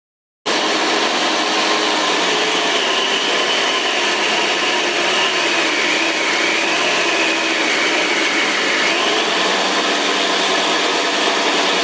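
Homemade belt sander running steadily, its electric motor and sanding belt making a loud, even whir. The sound cuts in suddenly just after the start.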